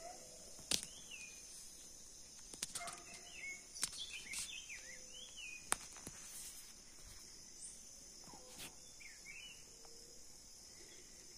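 Outdoor ambience of a steady high insect drone, with short rising-and-falling bird chirps and a handful of sharp clicks scattered through.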